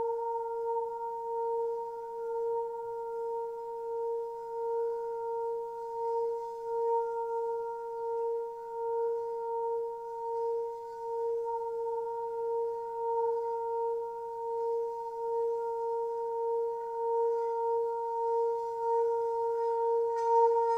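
A sustained, steady ringing tone with a couple of higher overtones, wavering slowly and evenly in loudness, like a rubbed singing bowl or a drone.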